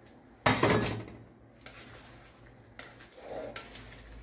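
Wooden spatula stirring shrimp in a black wok, with one loud clatter against the pan about half a second in, then a few light knocks over a low steady hum.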